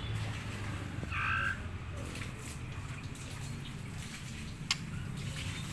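White-rumped shama (murai batu) giving one short, raspy call about a second in, with a sharp click near the end.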